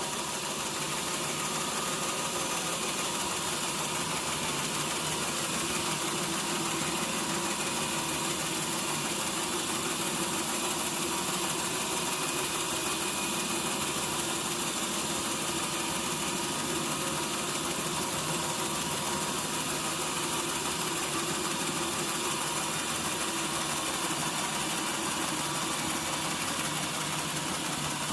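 Sawmill machinery running steadily, a continuous engine-like drone with no distinct knocks.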